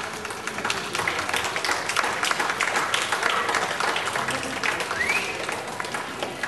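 Spectators applauding, a steady patter of many hands clapping, with a short rising tone about five seconds in.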